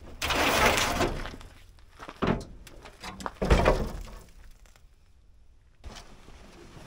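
Rusty steel hood of an old Ford pickup being opened: a rough scraping noise about a second long, then two metal thunks, the second louder. Faint rustling of a canvas tarp near the end.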